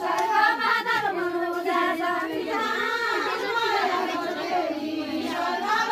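A group of women singing together, high voices carrying a folk melody in rising and falling phrases.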